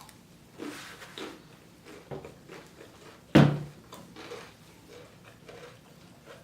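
Eating and table-handling sounds: a few soft smacks and rustles, then one sharp knock about three and a half seconds in, followed by faint small clicks.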